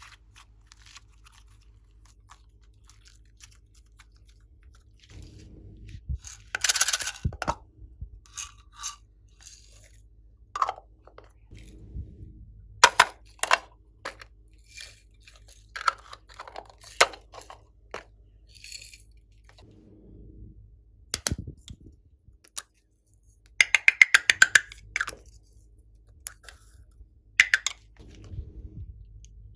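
Glossy slime being pressed and mixed by hand, giving scattered crisp crackles and clicks, with one fast run of clicks late on.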